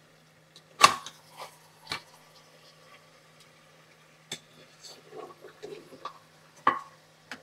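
Steel spatula clanking and scraping against an aluminium pressure cooker while stirring mutton that is frying down until the oil separates: a handful of sharp knocks, the loudest about a second in, with softer scrapes between. A steady low hum runs underneath.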